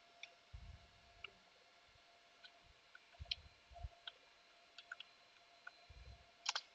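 Faint, scattered computer mouse clicks, with a louder double click near the end, and a few soft low thuds in between.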